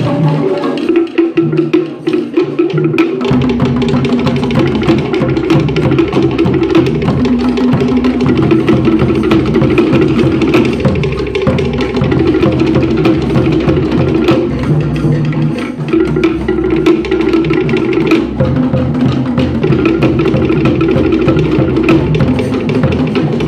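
Cook Islands drum ensemble playing a fast, dense rhythm on wooden slit log drums (pate) beaten with sticks, over larger skin-headed drums. A deep drum beat joins about three seconds in.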